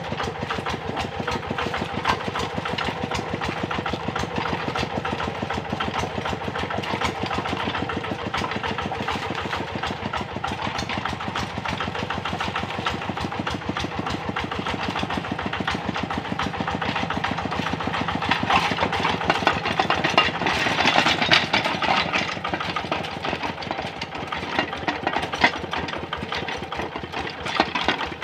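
Kubota RD65 single-cylinder diesel engine on a walk-behind hand tractor running steadily with a fast, even chugging as the tractor is driven along. It grows louder for a few seconds about two-thirds of the way through.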